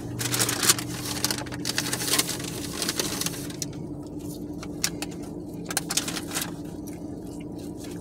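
Paper sandwich wrapper rustling and crinkling, with eating noises: crisp, crackly bursts, thickest in the first few seconds and then scattered, over a steady low hum in the car cabin.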